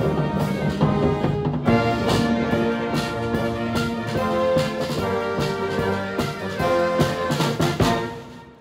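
Military band of brass and percussion playing in full, with trombones and euphoniums prominent and regular drum strikes, closing on a final chord about eight seconds in that dies away.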